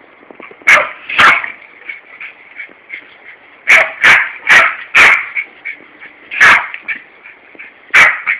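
Yorkshire terrier barking at a garden hosepipe: about eight sharp barks in irregular bunches, two near the start, four in quick succession about four seconds in, then two single barks.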